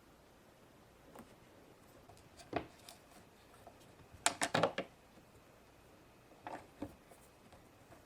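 Light clicks and taps from handling Play-Doh molds and toy pieces, with a quick run of clicks about four seconds in.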